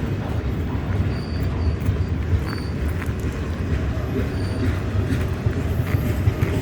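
Freight train of tank wagons rolling through on the rails: a steady low rumble with faint clicks from the wheels.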